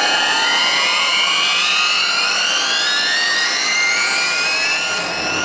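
Electronic riser sweeps from a hardstyle show's arena sound system: several tones glide steadily upward together over a dense rushing wash, with no bass or beat.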